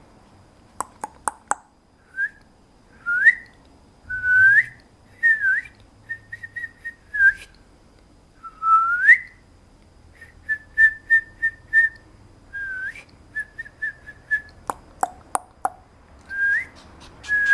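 Papillon puppy whining in high, thin squeaks, many rising at the end, with runs of short stuttering whimpers between them. A few sharp clicks about a second in and again near the end.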